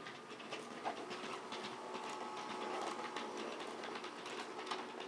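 Large-scale electric model train running on its track: a steady faint motor hum with light, irregular clicking of the wheels on the rails.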